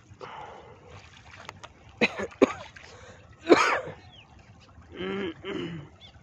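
A person coughing and clearing the throat in short loud bursts, the loudest about three and a half seconds in, with two short voiced sounds about five seconds in, over light splashing of water.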